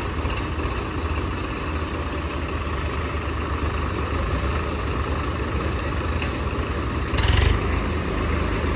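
Diesel tractor engines running under load as they strain to pull a tractor stuck in paddy-field mud. There is a brief louder burst about seven seconds in.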